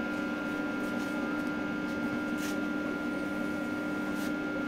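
Steady electrical hum of a switched-on arc (stick) welder idling, with no arc struck yet. Two faint ticks come partway through.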